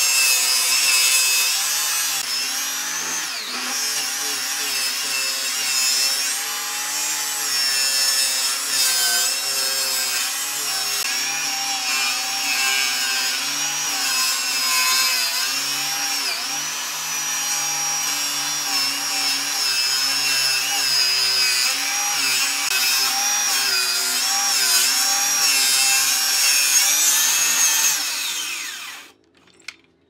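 Handheld electric circular saw ripping a long wooden board lengthwise, its motor whine wavering with the load of the cut. Near the end it is switched off, winds down falling in pitch, and stops, followed by a single click.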